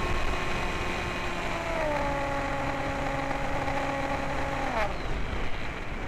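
The Sky Shadow S800 flying wing's electric motor and propeller whine under steady rushing wind. The whine steps down in pitch about two seconds in, then winds down and stops near the end as the throttle is cut, leaving only the wind.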